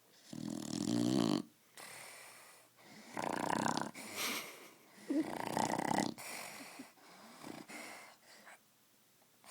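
A sleeping dog snoring: a series of snores about a second long each, the loudest ones in the first six seconds, then softer, shorter ones toward the end.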